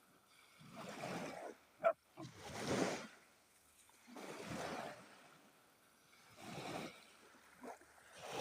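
Small sea waves washing onto the shore, a swell of surf about every two seconds. About two seconds in, a brief sharp pitched sound cuts through, the loudest moment.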